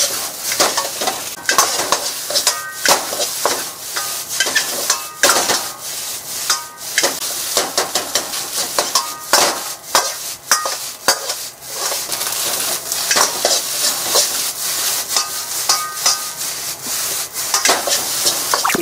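Fried rice sizzling in an iron wok while a metal ladle stirs and scrapes it, knocking against the pan many times, with short metallic rings from the wok.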